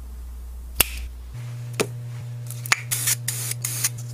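Intro sound effects: three sharp snaps about a second apart, then a quick run of short hisses, over a low steady hum that steps up in pitch early on.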